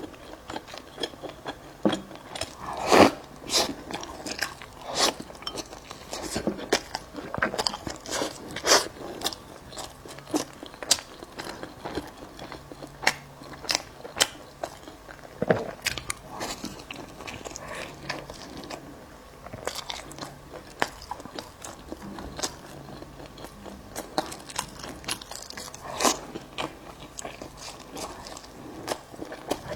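Close-miked crunchy biting and chewing of a bagel: irregular crisp crunches and smacks, with a few louder bites scattered through.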